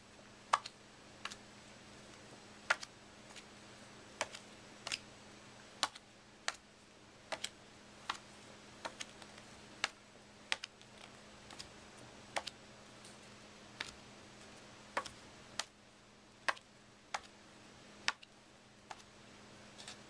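Playing cards dealt one at a time onto a wooden tabletop, each landing with a light sharp click, irregularly, about once or twice a second.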